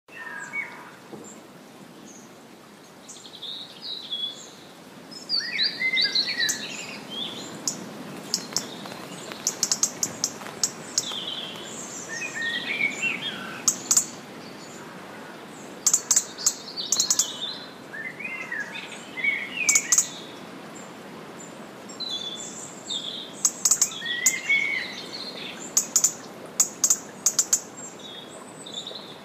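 Birds chirping and trilling in short phrases, with sharp clicking notes now and then, over a steady low background hiss, like a dawn chorus.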